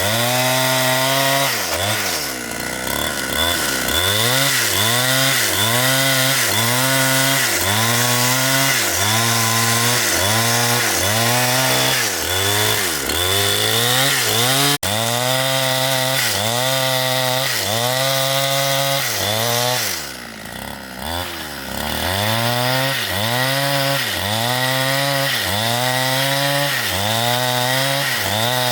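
Large chainsaw cutting into a big tree trunk, its engine speed swelling and sagging about once a second, and twice falling briefly toward idle.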